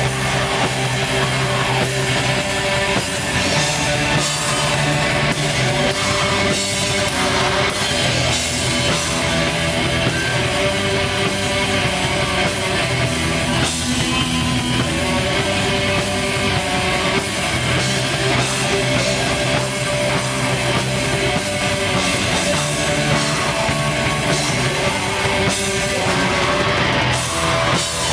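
Black metal band playing live: distorted electric guitars over a drum kit, loud and dense with no breaks.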